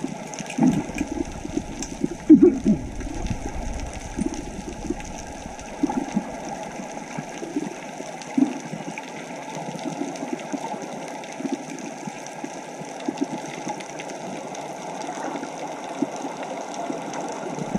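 Muffled rush of water around a camera held underwater, with irregular short low bubbling pops, most frequent in the first few seconds.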